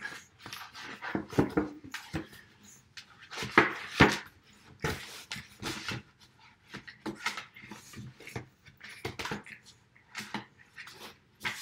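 A puppy snuffling and scrabbling over a sketchbook while its paper pages are handled, heard as a string of short, irregular rustles and scratches. The loudest comes at about three and a half to four seconds in.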